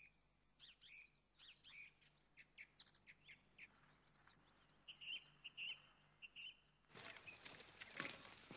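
Faint bird chirps, short quick calls coming several at a time. About seven seconds in, the tramp of many soldiers' boots marching on a paved street starts.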